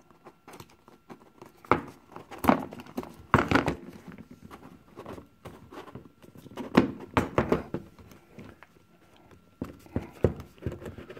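A snug-fitting cardboard phone box being handled and its lid worked off: irregular knocks, taps and scraping of the box against a wooden table, with a few louder thumps.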